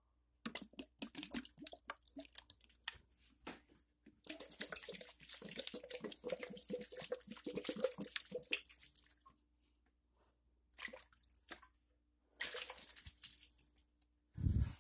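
Water poured from a plastic jug onto the soil of potted houseplants, in several runs: broken splashing at first, a long steady pour from about four to nine seconds in, then two shorter pours. A low thump just before the end.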